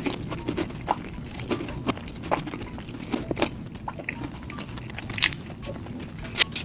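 Close-miked eating: chewing with many short, irregular wet mouth clicks and small crunches.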